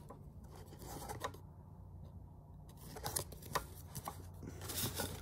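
Paper cards and a thin cardboard box being handled: a few short rustles and crinkles, the loudest near the end, over a steady low hum.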